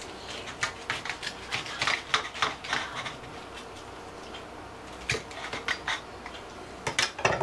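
A knife cutting through a club sandwich on an onion roll with bacon and lettuce: a quick run of short crackles and scrapes for about three seconds, then a few more near the end.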